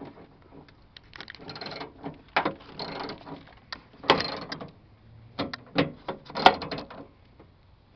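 Ratchet socket wrench clicking in short irregular runs, with scattered knocks, as it tightens a 10 mm screw holding a car's exterior door handle.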